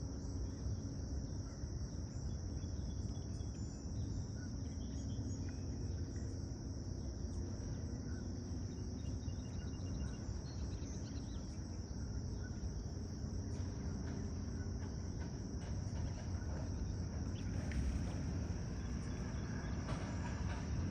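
Steady, high-pitched chorus of insects droning without a break, over a low background rumble. Near the end the rumble grows and some clicking sets in.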